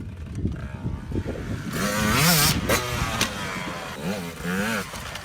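Two-stroke enduro dirt bike engine revved in quick throttle blips, its pitch rising and dropping each time. The loudest, longest rev comes about two seconds in, and shorter blips follow near the end.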